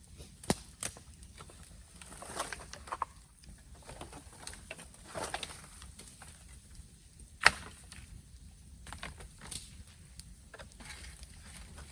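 Bamboo burning in an open bonfire: a steady hiss of flames with irregular sharp crackles and pops, the loudest a single crack about seven and a half seconds in.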